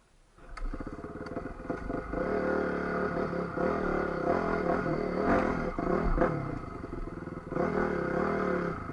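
Dirt bike's single-cylinder four-stroke engine, a Honda CRF450, running at low revs while riding, the revs rising and falling, with a few sharp knocks from the bike over the rough ground. It starts abruptly just after the beginning.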